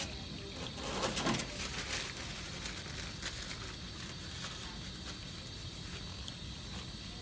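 Paper towels being pulled from a wall dispenser and rubbed between the hands to dry them, a light rustling and crinkling that comes in short bursts, most often in the first couple of seconds.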